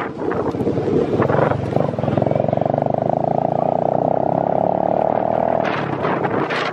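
Motorcycle engine running while riding along. From about two seconds in it holds a steady, rapidly pulsing buzz, which breaks up near the end among street noise and voices.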